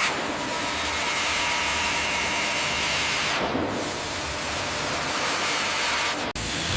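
Steady, loud hissing noise of woodworking factory machinery, with a brief change about three and a half seconds in and a sudden cut-off near the end.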